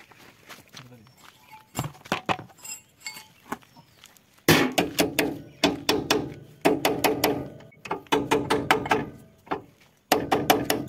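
Hammer striking steel at a harvester's track roller: quick runs of sharp blows, about five or six a second, each ringing metallically, in several bursts with short pauses between. A few lighter clicks come before the hammering starts, a little before halfway.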